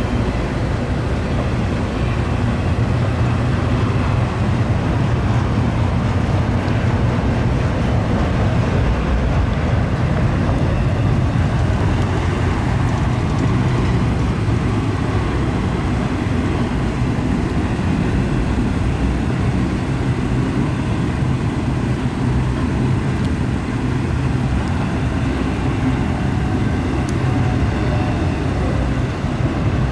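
Double-stack intermodal freight train rolling past with a steady rumble, its container cars crossing a steel railroad bridge.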